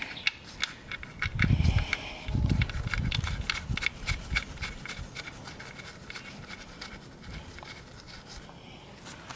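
Rapid, irregular metallic clicks and taps as a motorcycle's oil drain plug is threaded back into the sump and tightened, with two low thumps about one and a half and two and a half seconds in. The clicking thins out after about five seconds.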